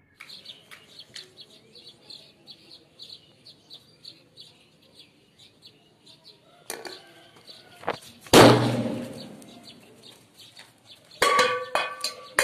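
A firecracker goes off under a cup set over it on the ground about eight seconds in: one sudden loud bang that dies away over a second or so. Small birds chirp before it, and sharp clattering knocks with a ringing tone come near the end.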